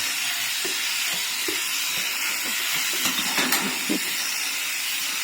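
Electric sheep shears running, a steady high hiss, with a faint knock about three and a half seconds in.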